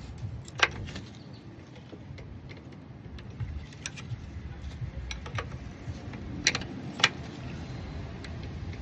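A 15 mm wrench tightening the shifter-linkage nut on a TH350 automatic transmission: a handful of sharp, scattered metal clicks and clinks over a faint low rumble.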